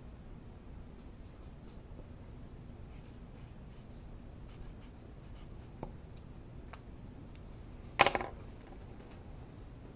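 Quiet room tone with a low steady hum and faint, intermittent scratching, a light click a little before six seconds in, and a single sharp knock about eight seconds in, the loudest sound.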